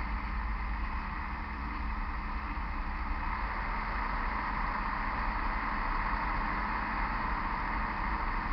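Steady grinding whir from a 2000 Chevy Blazer 4x4's drivetrain, over a low rumble, growing slightly stronger about halfway through. The owner suspects the front end: it does not rise with engine revs in neutral and is absent with the rear wheels jacked up.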